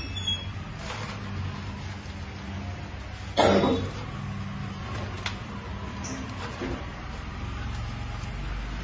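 Bundles of handmade beedis being handled and set down on a wooden tray, with soft taps over a steady low hum. One short, loud sound comes about three and a half seconds in.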